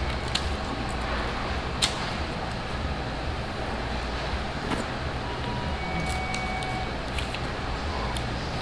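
Steady low background hum of a large indoor room, with a few light clicks and taps scattered through it.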